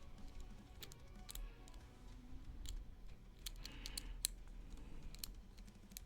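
Light, irregular metallic clicks and scrapes of a lock pick and tension wrench working the pins of a pin-tumbler lock, with a quick run of clicks a little past the middle. Faint background music underneath.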